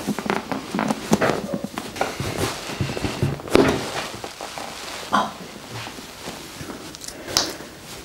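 Hands gripping and pressing a patient's legs through leggings on a padded treatment table: fabric rustling and irregular soft taps, with a few louder swishes.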